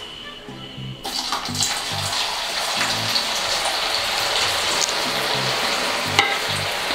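Par-boiled potato sticks slid into hot oil in a kadai about a second in, setting off a loud, steady frying sizzle as the oil bubbles up around them. A single sharp click near the end.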